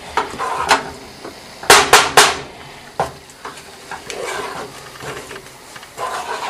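A utensil stirring thick homemade play dough in a saucepan, scraping and knocking against the pan, with two loud knocks close together about two seconds in and another a second later. The dough is stiffening and starting to form a ball, so it has become hard to stir.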